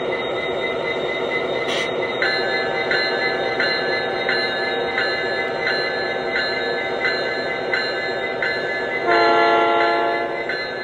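A model SD70 diesel locomotive's RailPro onboard sound system plays a steady diesel engine sound. About two seconds in its bell starts ringing, roughly once every 0.7 s. About nine seconds in it gives a horn blast of about a second, the loudest sound here.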